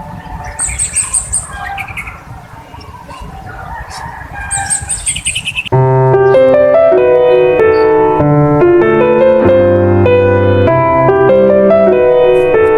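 Birds chirping in short repeated calls over background noise, then soft piano background music starts abruptly a little under halfway through and is louder.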